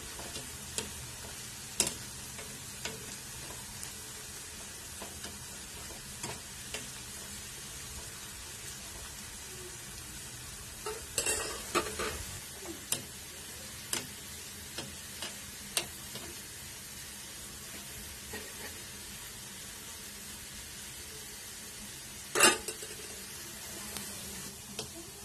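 Sliced onions deep-frying in hot oil in a kadhai, a steady sizzle, as they turn golden brown. A metal slotted spoon stirs them, knocking and scraping against the pan now and then, with a cluster of knocks about midway and the loudest knock near the end.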